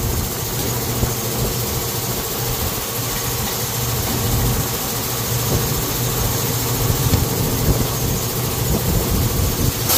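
A motor running steadily, a continuous low hum without pauses.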